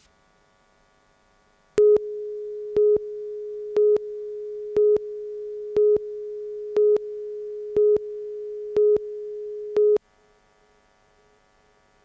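Line-up tone of a TV news countdown leader. A steady tone starts about two seconds in, with a short, louder pip once a second as the clock counts down. After nine pips it cuts off suddenly.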